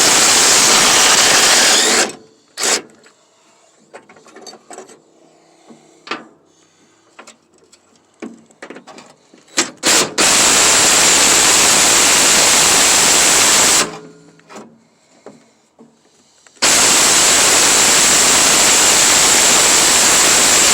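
A power tool run in three long, steady bursts of a few seconds each, working the mower deck's spindle mounting bolts, with light clicks and handling noise in between.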